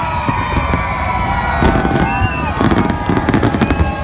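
Fireworks display: a dense, irregular run of bangs and crackles from shells bursting close together.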